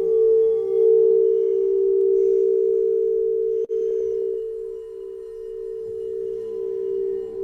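Singing bowl sustaining a steady low tone with a slow wavering beat. A little over halfway it breaks off for an instant with a click and a brief quick rattle, then rings on.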